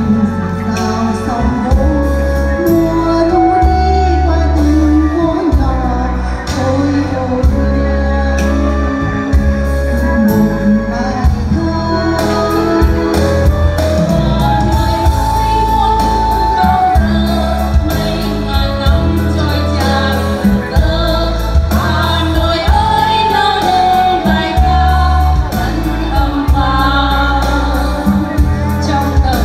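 A song played loud through a sound system: singing over a backing track with a heavy bass line. The beat gets busier about twelve seconds in.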